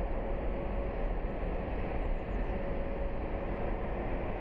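Jet airliner engines running: a steady rumble and hiss with a faint steady whine.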